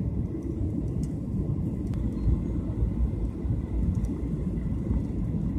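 Steady low rumble of a jet airliner's cabin in flight: engine and airflow noise heard from a window seat over the wing, with a faint thin high tone above it.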